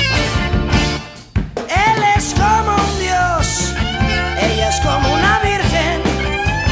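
Rock music with drums and a melodic lead line. It drops away briefly about a second in, then comes back at full level.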